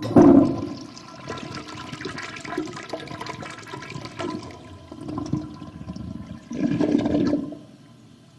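A toilet flushing: a sudden loud rush of water that starts all at once, goes on churning, swells again near the end and then drains away.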